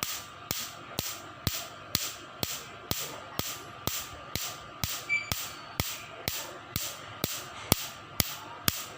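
Cosmetic laser machine firing pulse after pulse, a sharp snap about twice a second at an even rate, over a steady high hum from the unit. This is the machine working again after repair.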